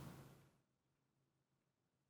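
Near silence: room tone, after a faint sound dies away in the first half second.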